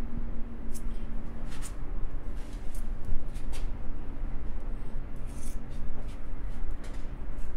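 Metal tool scraping red grease out of a plastic tub and smearing it into a CV joint: irregular short scrapes and wet clicks, over a steady low background hum.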